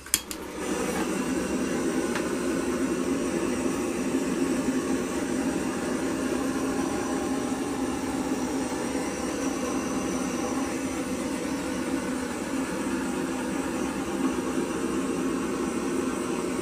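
Small handheld butane torch burning with a steady hiss, starting with a click just after the start.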